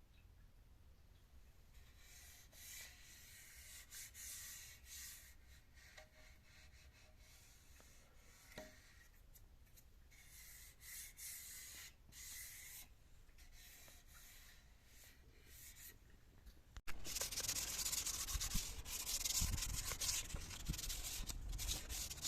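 Sandpaper rubbing over the old varnish of a wooden chair in repeated, uneven strokes. It is faint at first, then turns suddenly much louder and denser about three-quarters of the way in.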